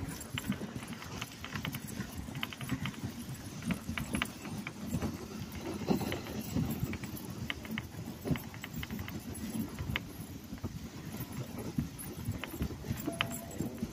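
Wooden dog sled running over snow behind a team of Alaskan huskies: a steady low rumble from the runners, with many irregular clicks and rattles from the sled and its chain.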